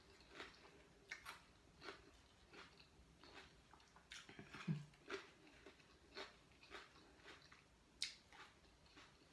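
Faint, close chewing of raw vegetables with the mouth closed: short crisp chews about one and a half a second. About halfway through there is a brief low hum from the eater's throat.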